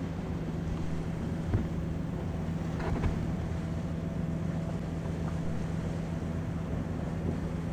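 Steady low engine hum under a haze of wind noise, with faint knocks about a second and a half in and again about three seconds in.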